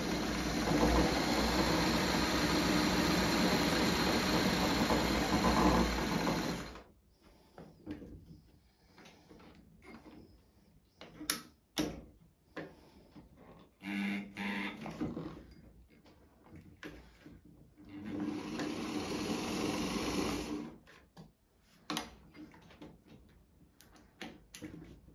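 1957 Singer 201K23 sewing machine running steadily under its electric motor, then stopping suddenly about seven seconds in. Scattered clicks and knocks follow as the machine is handled, with a brief run near the middle and another steady run of about three seconds later on.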